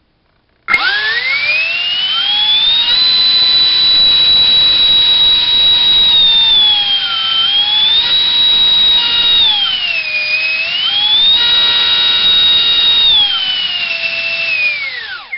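Electric ducted fan (70 mm four-blade Changesun fan driven by a GoolRC 2968 3800 kV brushless inrunner) spooling up to a loud high-pitched whine under throttle on a thrust stand, making close to 2 kg of thrust. The pitch sags twice as the throttle is eased and comes back up, then falls away as the fan winds down and stops near the end.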